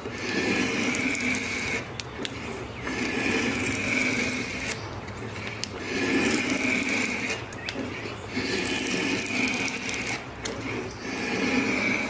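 A small power tool whirring in repeated runs of one to two seconds, stopping briefly between them, as a woodworking machine cuts or shapes wood.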